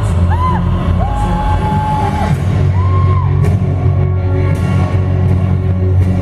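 Loud music with a heavy, steady low end. In the first three seconds a few short held notes rise and fall over it.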